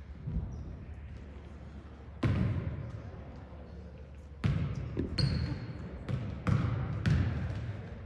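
Basketball bouncing on a gym floor: a few single bounces, then steadier dribbling about twice a second from halfway on, each bounce echoing in the hall, with a short high sneaker squeak about five seconds in.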